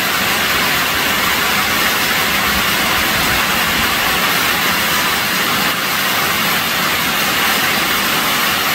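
Mountain stream water rushing, a steady loud hiss without any tone, which starts and stops at abrupt cuts.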